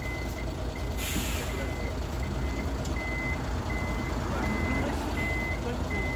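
Concrete mixer truck's reversing alarm beeping steadily, short high beeps about every three-quarters of a second, over the low running of the truck's engine during the pour.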